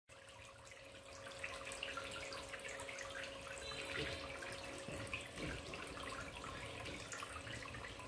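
Water from a homemade plastic-bottle fountain spraying in many fine jets and splashing steadily down into the water of a plastic basin.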